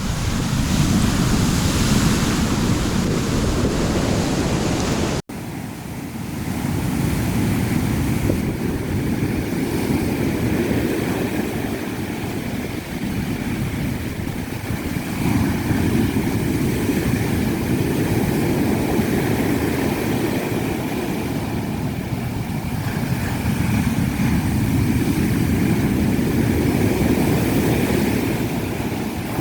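Wind and surf noise for the first few seconds, then after an abrupt cut the steady low rumble of a vehicle on the move, swelling and easing, with a faint steady whine above it.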